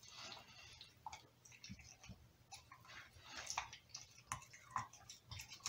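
Pit bull chewing and licking a raw Cornish hen: faint, irregular mouth smacks and clicks, a few to the second.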